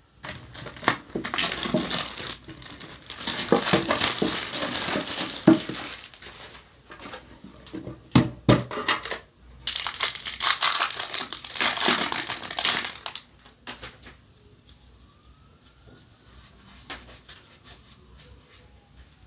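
Foil trading-card booster pack crinkling and tearing open, in several rustling bursts over the first dozen or so seconds. After that come soft clicks of cards being handled.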